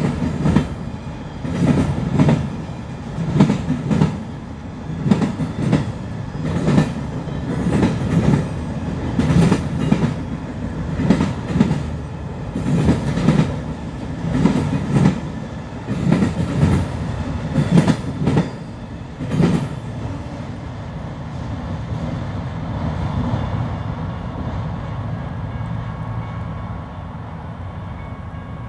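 Autorack freight cars rolling past, their wheels clicking over rail joints: a double clickety-clack about every second and a half. About two-thirds of the way through the clatter stops as the last car goes by, leaving a steady rumble that slowly fades.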